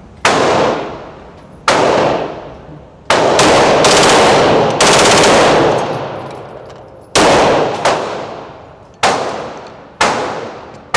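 Smith & Wesson M&P 2.0 9mm pistol with a Freedom Finger forced-reset trigger firing. Two single shots come first, then a fast string of rapid fire a little past three seconds in, then three more single shots spaced a second or two apart. Each shot rings out with a long echoing decay.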